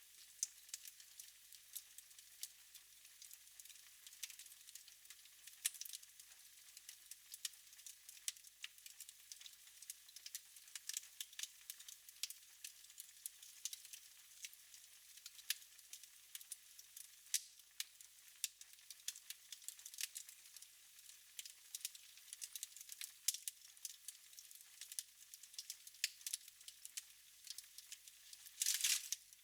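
Wood fire crackling in a fireplace: a steady scatter of small sharp pops and snaps over a faint hiss, with a brief louder burst of crackle near the end.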